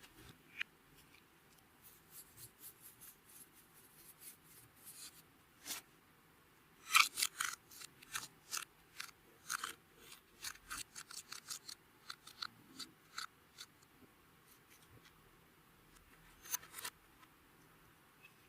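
Clear slime being worked by hand, giving off an irregular run of sharp, crisp clicks and pops, thickest about seven seconds in and sparser towards the end.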